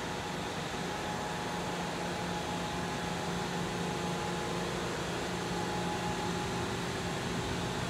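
Steady hum and fan noise of a powered-up Okuma MacTurn 350-W multitasking turning-milling center idling with no cutting, with a few steady low tones.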